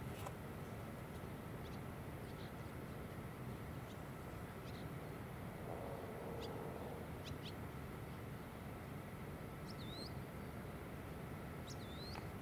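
Scattered short, high bird chirps, with two whistled notes that dip and then rise, one about ten seconds in and one near the end, over a steady low rumble of background noise.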